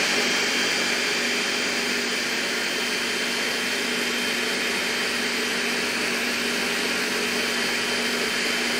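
Countertop blender running steadily, blending a liquid sauce: a loud, even whir with a faint steady whine, unchanging throughout.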